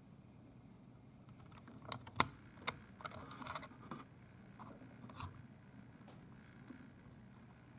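Sharp clicks and a light clatter of hand tools and small parts being handled, with a short scratchy rustle about three seconds in; the loudest click comes a little after two seconds.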